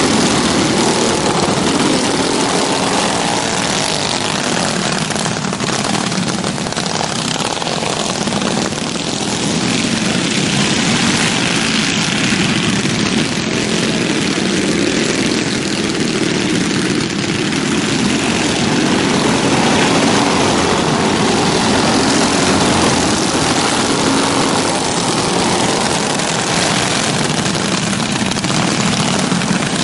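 A pack of alcohol-fuelled dirt-track racing karts at speed, their small engines blending into one continuous loud buzzing.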